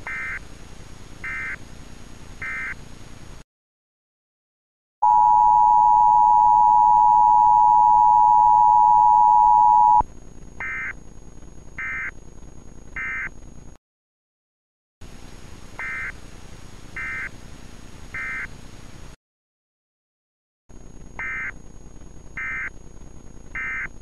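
Emergency Alert System signal: sets of three short, high-pitched digital bursts over a hiss, separated by brief silent gaps, with a loud, steady two-tone attention signal held for about five seconds early in the sequence. The long two-tone is the loudest part.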